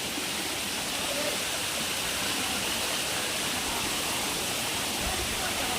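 Waterfall and its stream: water rushing with a steady, even noise.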